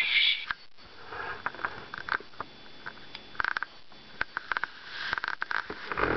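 Short breathy sounds from the small speaker of an opened-up 1991 Sleepy Sounds Mickey Mouse bedside light, which is working with its casing off, mixed with scattered small clicks.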